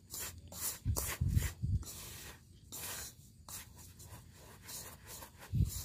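A hand stirring and turning over dry powdered fishing groundbait in a plastic basin: repeated short scratchy, rustling strokes of fingers through the grainy powder, with a few low thumps about a second in and near the end.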